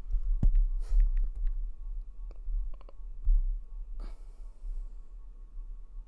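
Quiet background music with a deep, pulsing bass, and two short breaths close to the microphone, about a second in and again about four seconds in.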